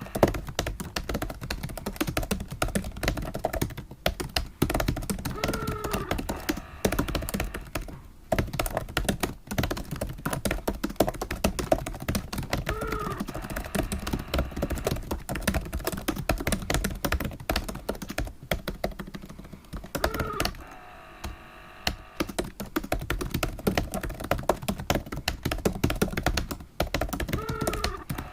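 Fast typing on a computer keyboard: a dense run of key clicks, with a brief pause a little past two-thirds through. A short tone sounds a few times over the typing.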